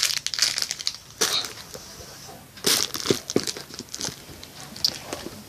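Crinkling and rustling in irregular bursts as something crinkly is handled, with a few soft knocks near the middle.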